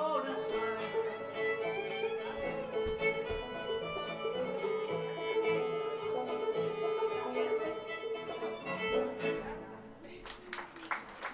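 Fiddle-led old-time string band playing live, the fiddle holding a long note over the band. The tune ends about ten seconds in and clapping starts near the end.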